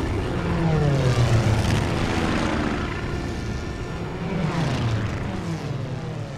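Piston engines of a formation of WWII propeller warplanes droning past, the pitch falling as planes pass close, once about a second in and again around five seconds in. The drone fades near the end.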